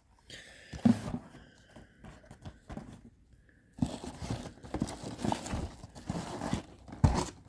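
Die-cast model car packaging being handled: a couple of knocks about a second in, then several seconds of rustling and crinkling of card and plastic from about four seconds in.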